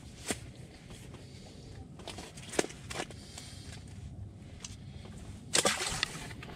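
Handling noise inside an ice-fishing shelter: a few light clicks and rustles as fishing rod and tackle are worked by hand, with a louder rustling scrape of clothing or fabric about five and a half seconds in.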